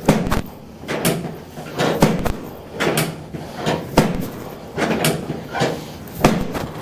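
A chiropractic treatment table gives repeated dull thuds, about one a second, as a patient lying face down is worked on.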